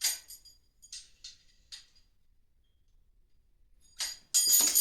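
A few light metallic clinks of metal parts being handled, then near the end a louder metal clatter that keeps ringing.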